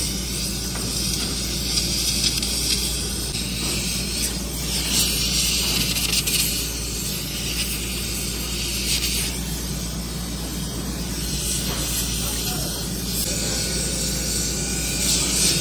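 Factory machinery running with a steady low hum, with several bursts of hissing a few seconds apart.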